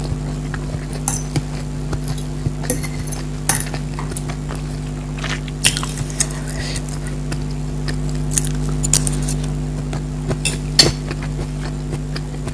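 Eating at a plate: cutlery clinking against the dish, with scattered short clicks and smacks, over a steady low hum.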